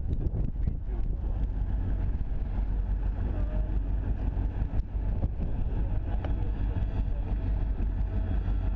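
Wind buffeting the microphone over the low, steady rumble of approaching Union Pacific diesel locomotives.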